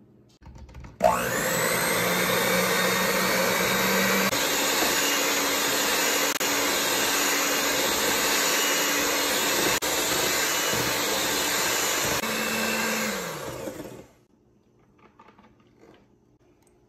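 Electric hand mixer with metal beaters whipping eggs and sugar in a glass bowl. It starts abruptly about a second in, runs at a steady high speed, then winds down and stops near the end.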